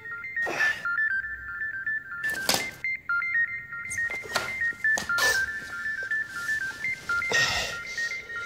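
Mobile phone ringing with a simple electronic ringtone, a high melody stepping back and forth between a few notes over and over. Several short rustles and knocks break in as clothes and papers are shoved aside in the search for it.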